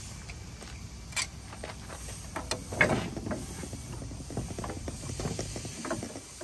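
Large slip-joint pliers clicking and scraping against a spin-on filter canister as the jaws are set and the filter is wrenched: a run of small metallic clicks, with a sharper click about a second in and the loudest cluster about three seconds in.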